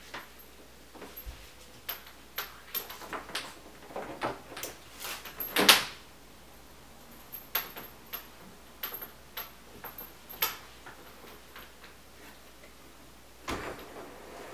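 Hands-on installation work: irregular clicks, taps and knocks of parts and tools being handled. The loudest is a longer knock about six seconds in, and a short rustle comes near the end.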